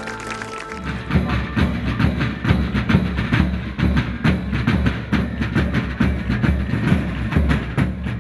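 Drums playing a steady marching beat with a heavy bass drum, starting about a second in.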